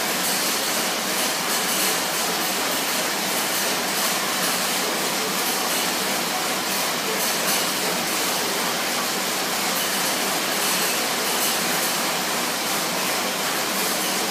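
Schwinn AirDyne fan bike being pedalled hard: the fan wheel churns air in a steady, loud whooshing rush.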